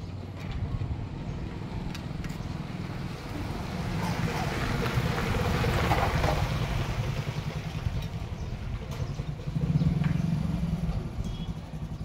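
A motor vehicle's engine running close by with a low, even pulsing, growing louder to a peak about halfway through and swelling again briefly near the end.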